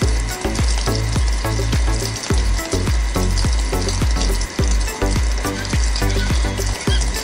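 A thin stream of water from a small pump's tube splashing steadily into a shallow pond, a constant hiss, over background music with a pulsing bass line.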